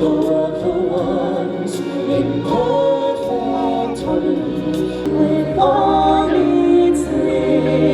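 Music with a choir singing, several voices holding long notes over the accompaniment.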